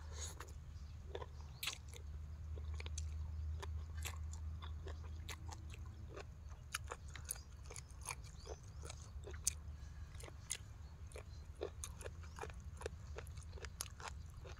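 A person chewing and biting a mouthful of Thai papaya salad close to the microphone: a quick, uneven run of crisp crunches and wet mouth clicks, over a steady low rumble.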